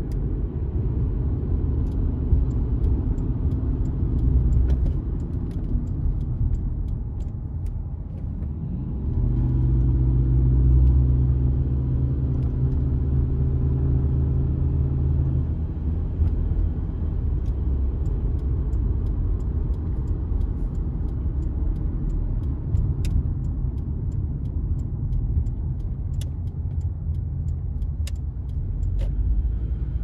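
Car driving: steady low road and engine rumble. About a third of the way in it briefly dips, then an engine's hum rises and holds for several seconds, as when pulling away.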